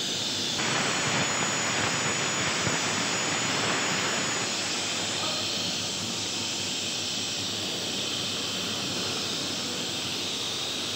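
Felder sliding-table panel saw running steadily. From about half a second to about four and a half seconds in it gets louder and brighter with a thin high whine, as the blade trims the edge of a wooden printing plate, then it settles back to a steady run.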